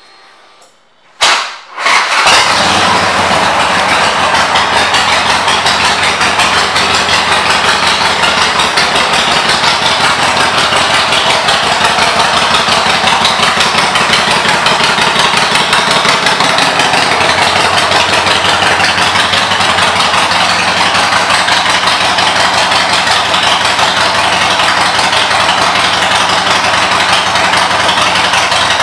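A 2007 Harley-Davidson Sportster 883's air-cooled V-twin, on Vance & Hines exhaust pipes, is started about a second in: a brief crank, then it catches and settles into a steady, loud idle.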